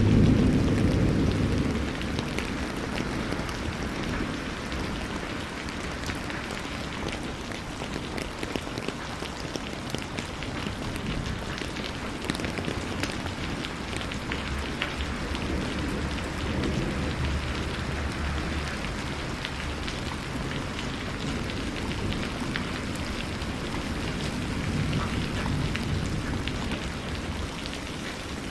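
Steady rain, with a dense scatter of small drop impacts close by. A low rumble at the start dies away within the first two seconds, and weaker low swells come and go later.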